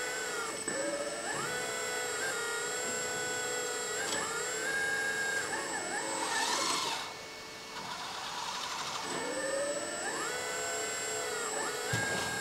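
Electric hydraulic pump of a 1/14 scale RC excavator whining as the arm and bucket are worked, its pitch rising as the pump speeds up and dropping back several times, over a steady hum. It eases off briefly a little past halfway.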